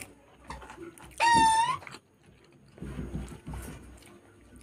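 A domestic animal's short, high, wavering cry, once, a little over a second in. Around it are faint, soft sounds of food being eaten by hand.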